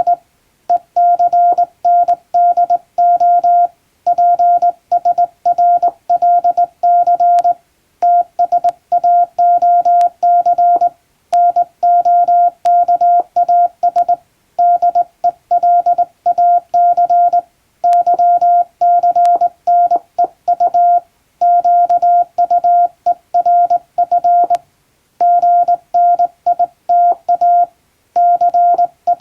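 Morse code on a single steady mid-pitched tone, hand-keyed with a straight key into short dits and longer dahs. The code comes in runs of characters broken by short pauses every few seconds, as a practice telegram text is sent.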